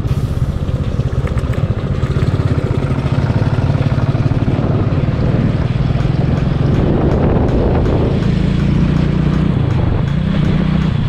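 Motorcycle engine running steadily with a fast, even pulse.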